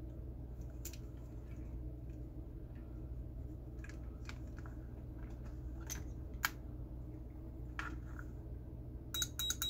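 Small clicks and taps from handling a stairlift control board and its wires on a workbench, over a steady low hum. Near the end comes a quick cluster of clicks with a short high beep.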